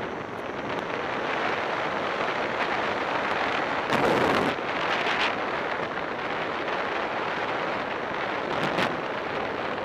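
Wind rushing over the microphone of a camera on a racing bicycle at speed, a steady rush with a louder surge about four seconds in.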